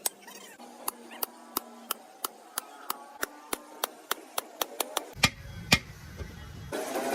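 Repeated hammer blows in a tractor engine repair, a steady run of sharp knocks about three a second, with two louder strikes past the middle. A low rumble comes in for about a second and a half near the end.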